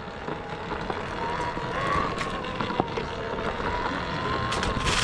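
Talaria Sting electric dirt bike being ridden over a dirt track: a faint steady motor whine from about a second in, over tyre and wind noise. Several knocks near the end.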